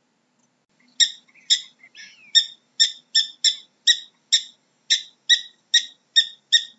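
Prairie dog giving a rapid series of short, sharp, high-pitched chirping barks, about two or three a second, starting about a second in.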